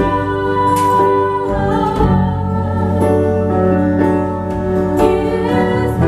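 Live band music: acoustic guitar and sustained chords under a woman singing a slow song.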